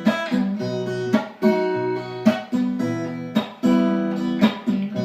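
Acoustic guitar strumming chords in a steady rhythm, the instrumental accompaniment between sung lines of a song.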